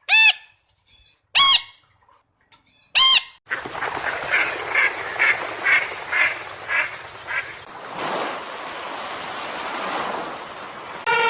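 Waterfowl calling: three short, loud honks about a second and a half apart, then a quick run of about eight calls against a steady hiss. Near the end a different, lower call begins, sliding down in pitch.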